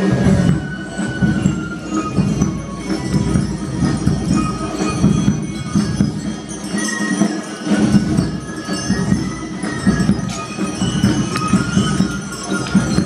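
Many small bells jingling continually, as on the harness of a four-horse team drawing a parade float, over a steady low rumble.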